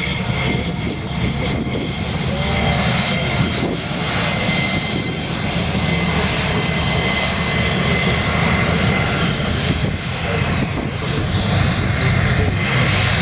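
Aircraft engine noise: a loud, steady rush with a high, steady whine over it.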